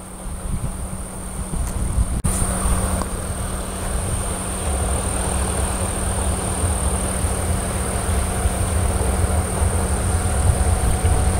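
Kintetsu electric train running on the line, its low rumble growing gradually louder, with a steady high whine over it. A sharp click about two seconds in.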